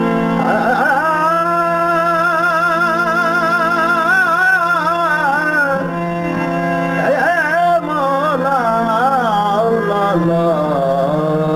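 A man singing a Sindhi Sufi kalam in long, wavering, ornamented held notes over a steady drone. He sings two phrases with a short pause about halfway through.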